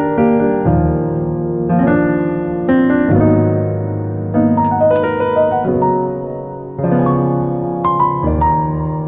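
Background piano music, chords changing about once a second.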